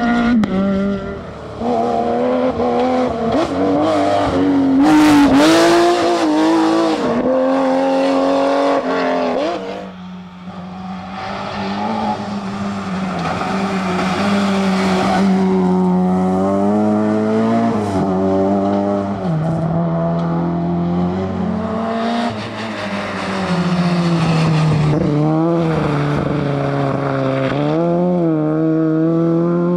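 Rally car engines at full throttle, the pitch climbing and dropping again and again through gear changes and lifts off the throttle, with a short lull about ten seconds in.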